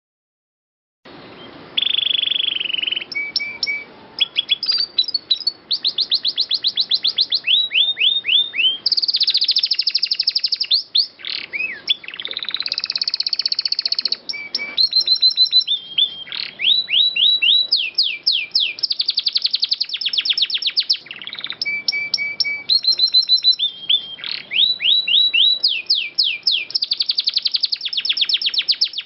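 Domestic canary singing, starting about a second in: a continuous song of long rapid rolling trills, runs of fast repeated notes and falling whistled notes, high-pitched.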